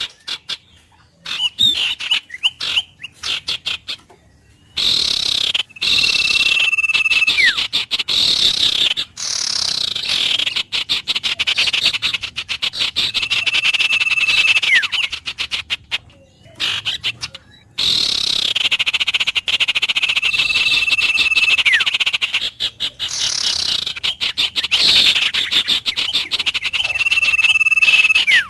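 Wild birds calling. A held whistled note ending in a quick downward slide comes back about every seven seconds, over busy rapid chattering and trilling that breaks off briefly now and then.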